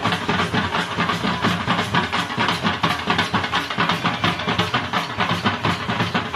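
Several dhols, Punjabi double-headed barrel drums, played together with sticks in a fast, dense beat that keeps going without a break.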